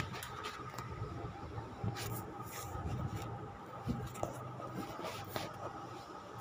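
Paper or card being scratched and handled by hand, in short scratchy bouts, over a steady electrical hum.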